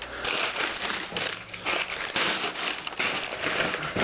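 Packing material crinkling and rustling by hand in irregular bursts as parts are unpacked from a box.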